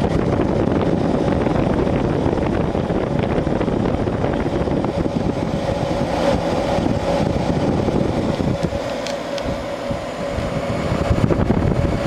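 A 1971 McGraw Edison Thomas Edison 6000 BTU window air conditioner running on cool: a steady hum under the rush of its fan's air, which buffets the microphone in a rough, fluttering way.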